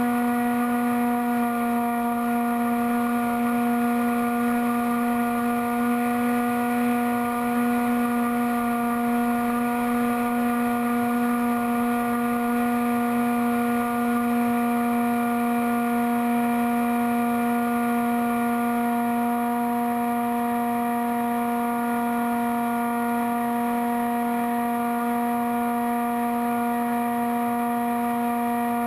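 Bixler foam RC plane's electric pusher motor and propeller running at steady cruise throttle, heard on board: a droning whine that holds one pitch throughout, over a rush of air.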